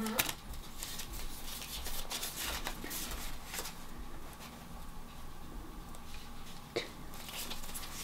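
Soft rustling and flicking of paper banknotes being counted through by hand, with one sharper tap a little before the end.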